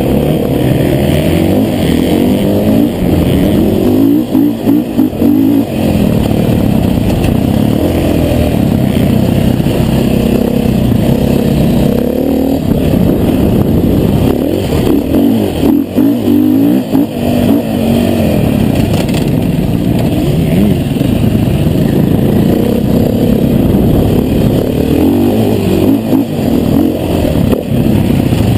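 2013 KTM 500 EXC's single-cylinder four-stroke engine heard on board while riding, the revs rising and falling as the throttle opens and closes, with brief drops in level now and then.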